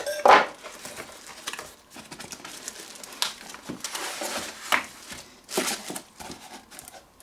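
Packaging being handled: a cardboard box's flaps and the bubble wrap around the items inside rustling and crinkling as they are pulled out, with irregular knocks, the loudest about a third of a second in.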